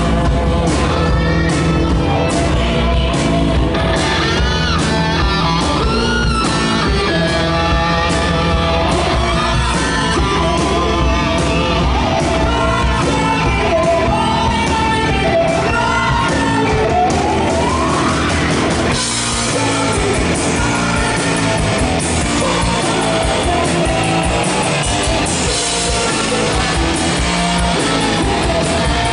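Live rock band playing with amplified electric guitars, bass and drums, a singer's voice over them, heard as a loud concert recording in a large venue; about two-thirds of the way through the sound thins in the bass and changes section, with a rising guitar slide just before.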